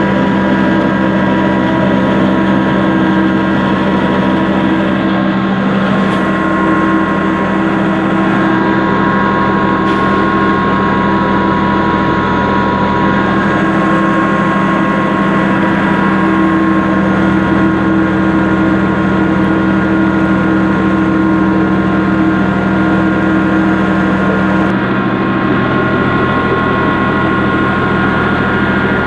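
Village wheat grinder machine running, a loud, unbroken mechanical drone made of several steady tones.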